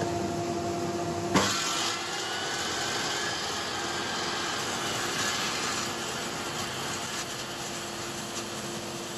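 Table saw blade cutting a spinning dowel in a drill-driven lathe jig: a steady whirring and rasping cutting noise with a motor hum, and one sharp knock about a second and a half in.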